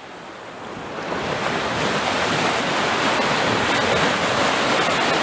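A steady rushing noise that swells up over the first couple of seconds and then holds.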